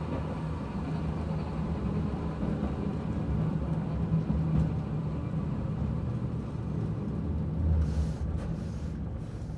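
Toei Arakawa Line tram heard from inside the car as it runs slowly along the track: a steady low rumble of traction motor and wheels on the rails, with a brief hiss near the end.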